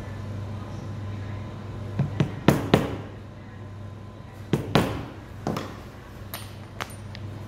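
Sharp knocks and clicks of hand tools and hardware on a stone work board during leatherwork, several coming in quick pairs about two seconds in, again about four and a half seconds in, and a few lighter ones near the end, over a steady low hum.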